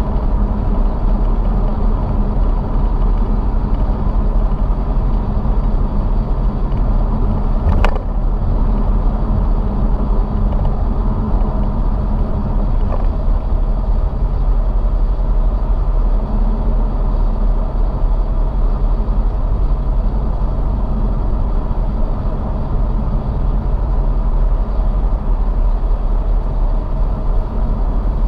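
Steady road noise of a car cruising at highway speed: a constant low rumble of tyres and engine, heard from inside the car, with a single sharp click about eight seconds in.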